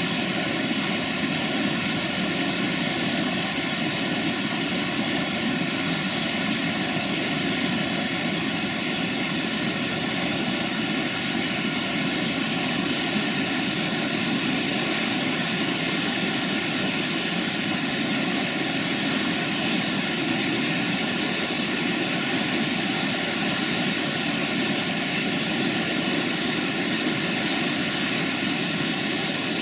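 Diesel rail vehicle engine running steadily: a constant drone with a few faint steady whining tones, unchanging in level throughout.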